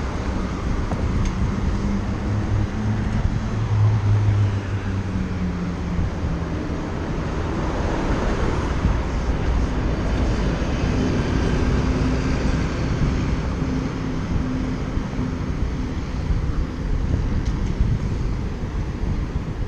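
City street traffic heard while cycling: motor vehicles running and passing close by, an engine hum swelling about two to six seconds in and another vehicle passing about eight seconds in, over a steady rush of wind on the bike-mounted action camera's microphone.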